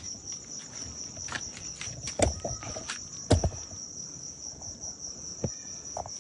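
Crickets chirring steadily on one high pitch, with a few scattered knocks and thumps; the loudest two come about two and three and a half seconds in.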